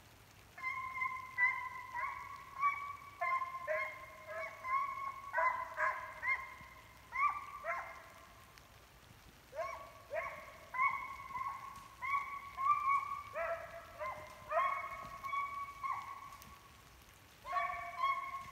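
Deer-hunting hound baying on a hot track, about two or three notes a second in long runs, broken by two short pauses.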